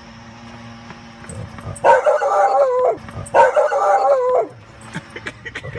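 A dog giving two long, wavering howl-like calls, each about a second long, with a short pause between them.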